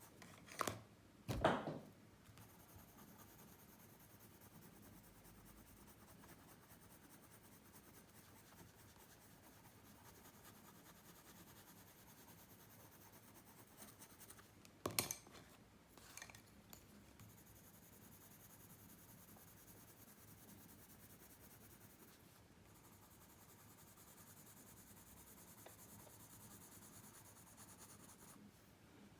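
Faint pencil scratching on paper while drawing, broken by a few short knocks about a second in and again around the middle.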